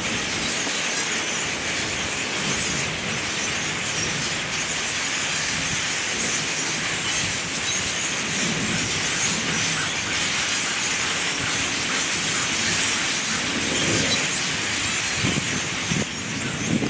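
A large flock of grackles calling all at once from a treetop: a dense, unbroken din of many overlapping high-pitched calls.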